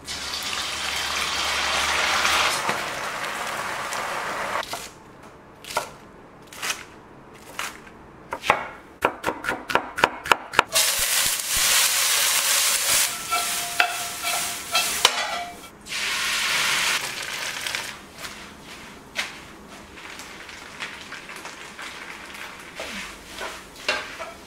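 Stir-frying in a stainless steel wok. Sliced beef sizzles loudly as it goes into hot oil, then a run of quick clicks and taps follows. A wooden spatula scrapes the pan as onions and bean sprouts sizzle, and quieter scraping and tapping comes near the end as rice noodles are tossed.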